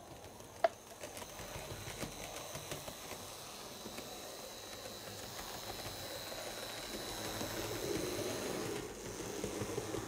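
HO scale Fleischmann electric multiple unit model train running on the track: a steady small-motor hum with a thin high whine and wheel rumble, growing louder from about seven seconds in and easing off near the end. A single sharp click about a second in.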